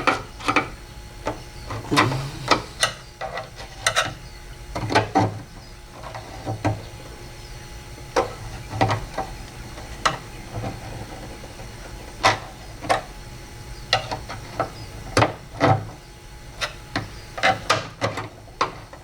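Irregular clicks, knocks and rattles of hands and tools working the parts of a car door's window regulator, a sharp knock every half second or so with short pauses.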